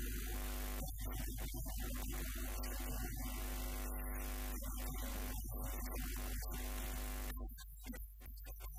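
Steady electrical mains hum under soft background music.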